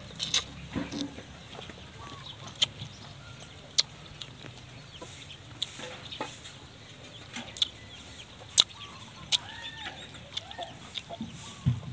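Chickens clucking in short calls, most of them in the second half, with scattered sharp close-up clicks and smacks from eating.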